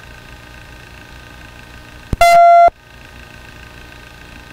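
Steady hum and hiss of an open police radio channel. About two seconds in there is a click, then a loud half-second beep on one steady pitch.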